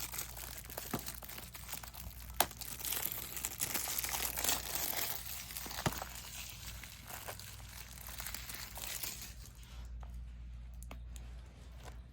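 Crinkling and tearing of plastic packaging being handled while unwrapping a 4K Blu-ray disc, with a few sharp clicks and taps. The rustling is strongest in the first half and dies down near the end.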